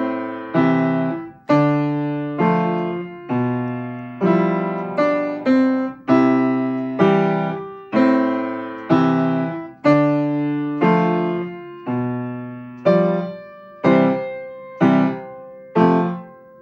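Upright piano played slowly: chords struck about once a second, each ringing out and fading before the next.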